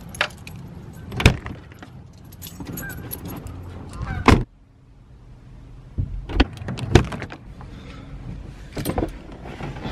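Keys jangling while a car door is unlocked and opened: a series of sharp clicks and knocks from the door handle and latch, the loudest about a second in and about four seconds in.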